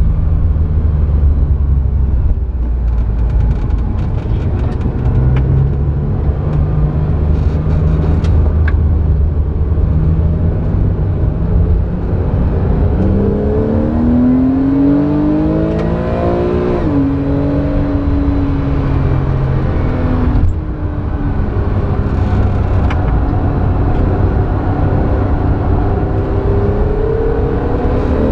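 Porsche 911's flat-six engine heard from inside the cabin while driven hard on track: a steady low drone at first, then revs rising about halfway through, a sudden drop in pitch at a gear change, and revs climbing again near the end.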